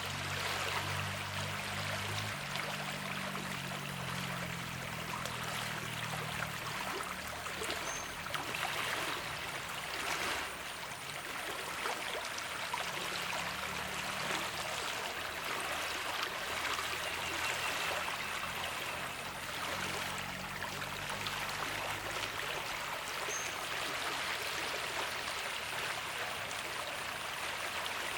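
Flowing water rushing steadily, with a faint low rumble underneath at times.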